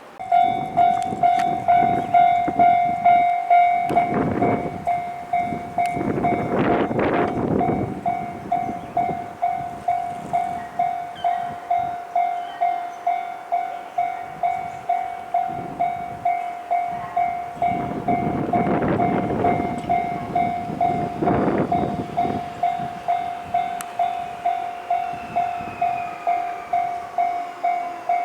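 Japanese level-crossing warning bell starting up and clanging in a steady repeating beat, while Nankai Main Line electric trains pass over the crossing with swells of wheel and running noise.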